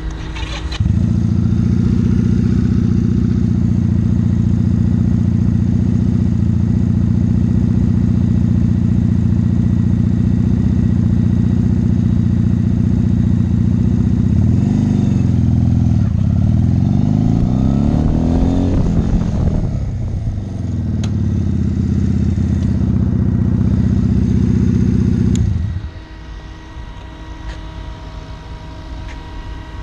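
1985 Honda Rebel 250's air-cooled parallel-twin engine running steadily, louder from about a second in. Around the middle its pitch rises and falls several times as the bike is ridden off and accelerated through the swerve exercise. Near the end it drops suddenly to a quieter idle as the bike stops.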